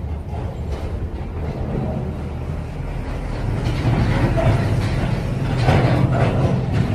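Road traffic: a passing motor vehicle's engine rumble, building up and loudest near the end.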